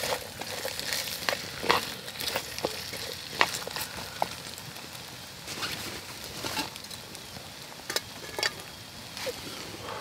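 Chopped onion frying in oil in a frying pan: a steady sizzle, broken by irregular sharp clicks and scrapes of the food being stirred in the pan.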